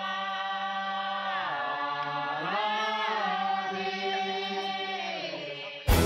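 Group of voices chanting together in a long, droning ritual chant, holding steady notes with a couple of slow slides in pitch. It is the chant of a Thao harvest-ritual procession. It is cut off just before the end by louder instrumental music.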